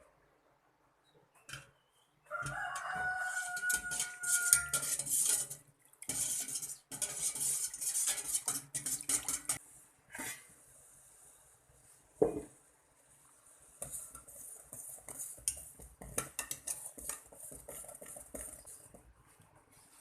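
A metal spoon stirring and scraping in a pot in bursts, with clinks. A rooster crows once in the background about two seconds in, a single drawn-out call.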